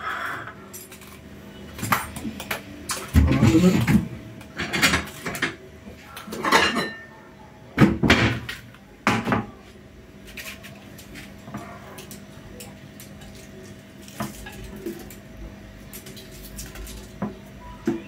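Kitchen utensils and a plate clinking and knocking on a countertop in a run of clatters over the first ten seconds, then fainter, scattered scrapes as a cheese slicer is drawn over a block of kaşar cheese. A faint steady hum runs underneath.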